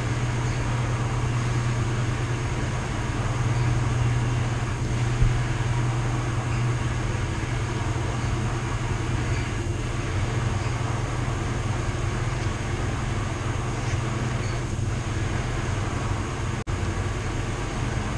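Steady drone of household machines running together (a clothes washer and dryer, a 3D printer and a sump pump), dominated by a constant low hum.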